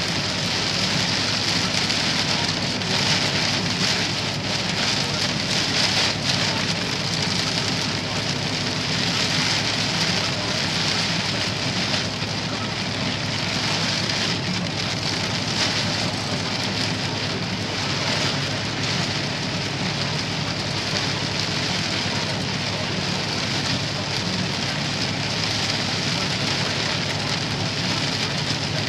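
Heavy rain drumming on a vehicle's windshield and roof, heard from inside the cab as a steady, dense hiss, with a low steady hum of the moving vehicle underneath.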